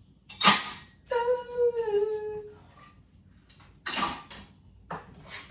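Dishes and plastic ware clattering as a dishwasher is unloaded: a sharp clink about half a second in, and more clinks around four and five seconds in. Between them a woman sings a single held note that slides slightly down.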